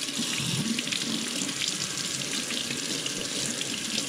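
Kitchen faucet running into a stainless steel sink, its stream splashing over a trout being rinsed by hand: a steady rush of water with small irregular spatters.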